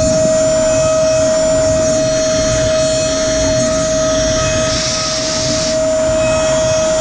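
Datron M8Cube CNC mill's high-speed spindle running a small cutting tool through a metal part, a steady whine over cutting noise. A brief hiss lasting about a second comes in about five seconds in.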